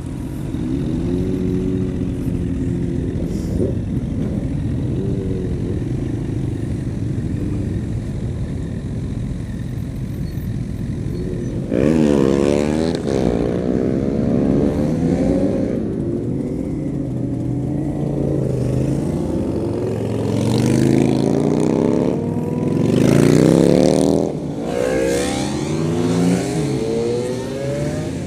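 Motorcycle engines: a 2012 Honda CBR1000RR Fireblade's inline-four idling steadily, then from about halfway through revving up and dropping back several times as it pulls away with other sportbikes riding off around it.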